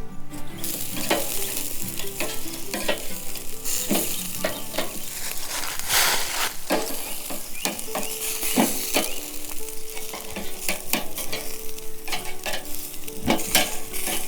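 Food sizzling as it fries in a pan, starting about half a second in, while a utensil stirs it with frequent clicks and scrapes against the pan.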